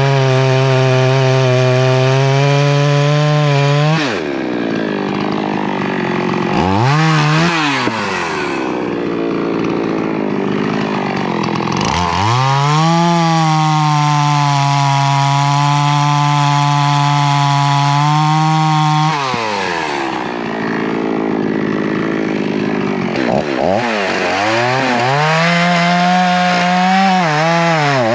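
Poulan Pro Super 380 two-stroke chainsaw, freshly rebuilt with a new piston and crank seals, held at high revs for several seconds at a time. In between it drops back toward idle, with quick throttle blips, and climbs again near the end.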